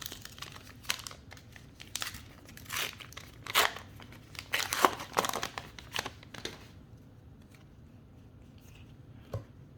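Foil wrapper of a trading card booster pack being torn open and crinkled, a run of sharp crackles over the first six seconds or so that then dies down, with one click near the end.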